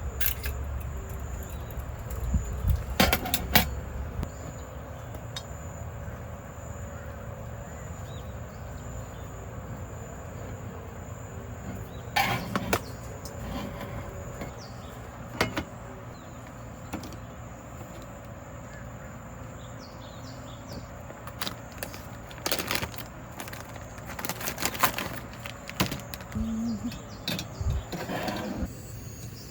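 Scattered clicks, knocks and light rattles of objects being handled, loudest about three seconds in and again around the middle and near the end, over a steady background with a thin high tone.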